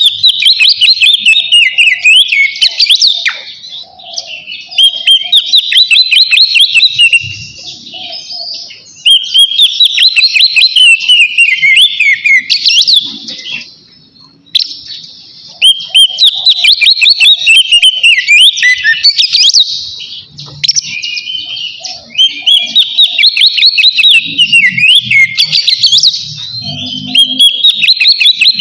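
Oriental magpie-robin (kacer) singing its loud, full 'ngeplong' song: long bouts of rapid, varied whistles and trills with brief pauses between them.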